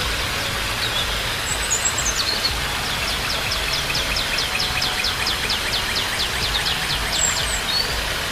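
Birds calling over a steady rushing noise. From about three seconds in, one bird gives a fast trill of rapid, evenly spaced down-slurred notes, about eight a second, lasting roughly three seconds.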